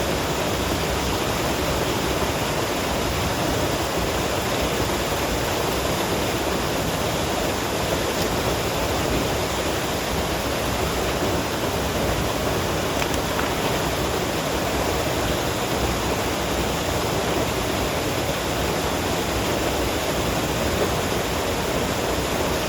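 Steady, unbroken rush of water pouring over a creek spillway.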